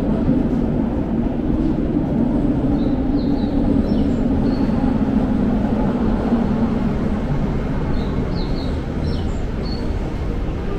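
Low, steady rumble of a Toei Oedo Line subway train in the underground station, easing off in the second half. A few faint, short high chirps sound over it.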